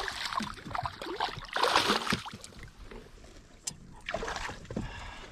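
Water splashing beside a small fishing boat as a hooked bass is brought in, loudest at the start and again about a second and a half in, followed by a single sharp knock.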